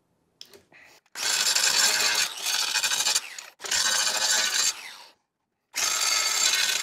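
Angle grinder grinding the protruding hot-staple ends flush on a polyethylene skid plate, in three short passes, each trailing off as the grinder is let off.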